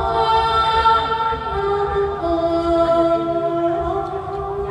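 Mor lam singing: a long, drawn-out sung note, held steady and then sliding to a lower pitch about two seconds in.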